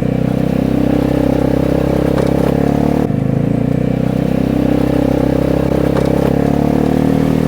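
Vespa GTS 250 scooter's single-cylinder four-stroke engine running steadily under way through a loud aftermarket exhaust. There is a brief break in the note about three seconds in.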